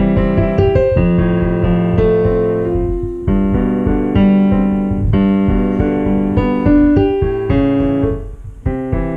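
Digital piano played with both hands: held chords under a moving melody, with a short lull near the end before the playing picks up again.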